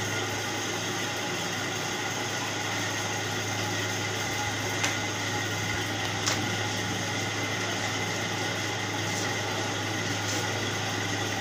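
Steady machine hum of a small running motor, with a few sharp clicks about five, six and ten seconds in.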